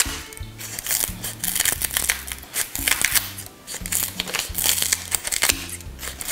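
Kitchen scissors snipping through pandan leaves in a quick run of crisp cuts, over background music with a low, stepping bass line.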